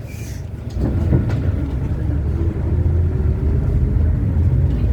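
City bus running, a steady low engine rumble with a faint whine that rises gently through the second half as it picks up speed.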